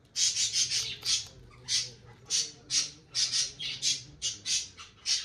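Guinea pig biting and crunching a crisp green vegetable stalk, a quick, irregular run of sharp crunches about three a second.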